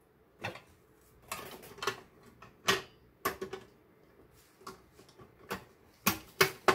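Clear plastic pouring shield being fitted onto a KitchenAid stand mixer's stainless steel bowl: a string of irregular plastic clicks and knocks, the loudest two close together near the end.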